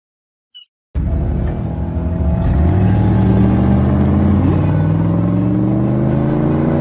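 A short high squeak, then about a second in cartoon race car engines start suddenly and run loudly, their pitch slowly rising as they rev.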